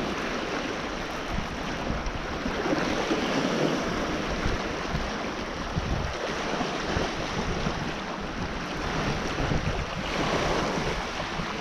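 Wind buffeting the microphone over small waves lapping on a rocky lakeshore, a steady rushing noise.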